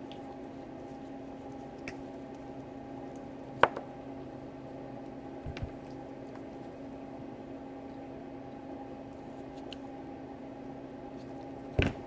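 Wire strippers working on the thin wires of a laptop power adapter cord: one sharp click about three and a half seconds in and a softer knock about two seconds later, over a steady low hum.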